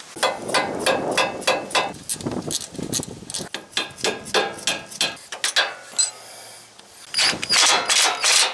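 A hand ratchet clicking in quick strokes as bolts on a truck's front suspension are worked loose, then after a short pause a cordless impact wrench running in loud bursts near the end.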